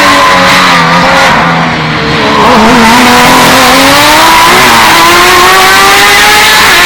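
Porsche 911 RSR flat-six race engine, its pitch falling as the car slows and then rising steadily under hard acceleration, with a brief dip near the end like an upshift. The recording is bass-boosted and driven to near full scale.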